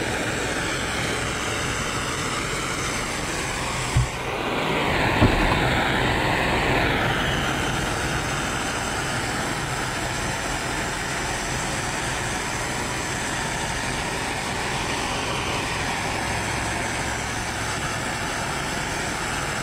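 Steady hiss of a pressure washer's water stream spraying onto a weathered wooden fence to soak it down. It grows a little louder for a few seconds after a brief knock about four seconds in.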